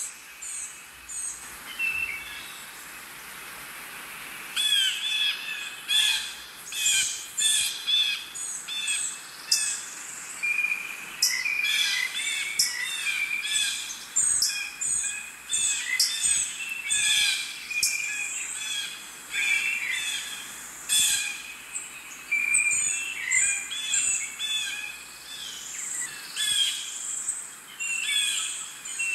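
Several wild birds chirping and calling over one another in quick, overlapping phrases. The calls are sparse for the first few seconds and become dense from about five seconds in.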